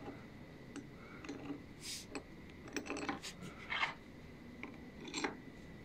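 Light metallic clicks and rattles of long steel wood screws being handled and set into the holes of a wooden jig block: a scattering of separate faint clicks, a little louder about two, three and four seconds in.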